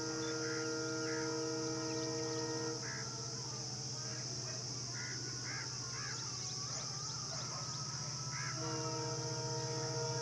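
A WDP4D diesel locomotive's horn sounding a long steady blast that stops about three seconds in and starts again near the end. Birds call in short bursts and insects buzz steadily throughout, over a steady low hum.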